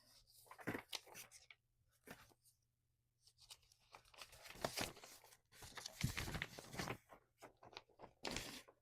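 Paper rustling and crinkling in irregular bursts as an instruction sheet is handled and leafed through, busiest and loudest in the middle and latter part.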